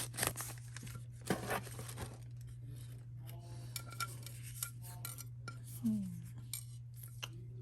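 Scattered light clicks and taps with soft rustling as sticker packs in their plastic packaging are handled, over a steady low hum.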